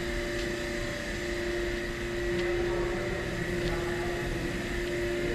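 Steady machinery hum in a subway station, with a constant droning tone, and a few faint ticks over it.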